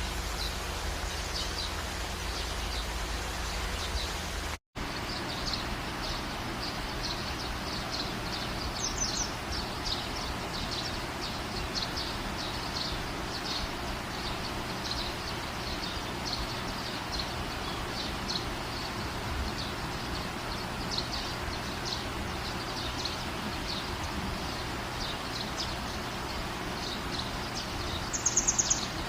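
Steady rain with small birds chirping over it again and again. The sound cuts out for an instant about five seconds in, and near the end one bird gives a louder, sharper call.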